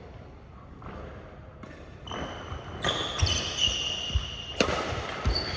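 Badminton play on an indoor court: dull thumps about a second apart and high squeaking tones over a rising background noise, starting about two seconds in.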